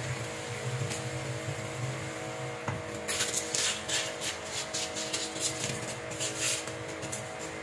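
Thin plastic bottle handled and squeezed at a sink: a run of short crinkling crackles from about three seconds in, over a steady faint hum.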